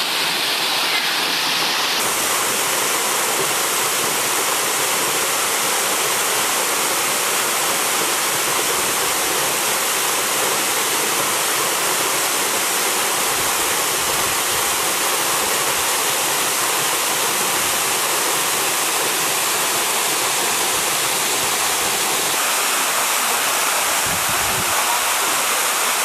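Waterfall: water falling down a rock face and splashing into the pool below, a steady, unbroken rush.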